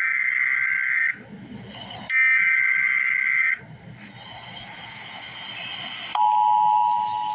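Emergency Alert System tones: the end of one modem-like SAME header data burst, then a second burst about a second and a half long, then after a pause of about two and a half seconds the steady two-note EAS attention signal begins.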